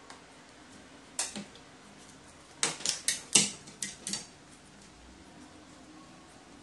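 A crow's beak and claws clicking and tapping on plastic cups as it pecks at apple pieces: a single tap about a second in, a quick run of five or six sharp clicks a little after halfway, then two more.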